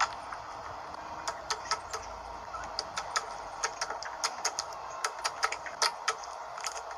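Slime being squeezed and poked by hand, making irregular sticky clicks and pops, several a second, over a soft steady squelch.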